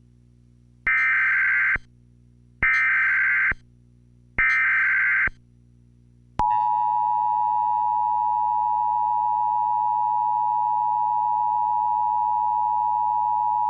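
Emergency Alert System header: three short bursts of digital data tones, evenly spaced, followed about six and a half seconds in by the long, steady EAS attention tone that signals an alert is about to be read.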